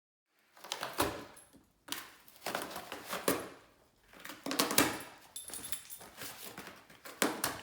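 A dog moving about close by, rustling and scuffling in irregular bursts, with faint jingles of metal collar tags.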